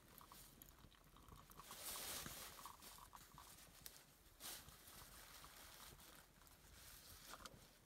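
Faint trickle of tea poured from a metal kettle into small glass tumblers, with a few light clicks.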